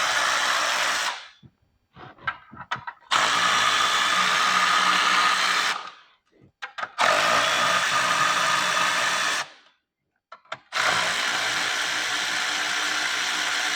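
Handheld power tool running in four long bursts of about two to three seconds each, with short clicks and pauses between. It is spinning off fasteners as the carburetor and intake manifold come off a small-block Chevy.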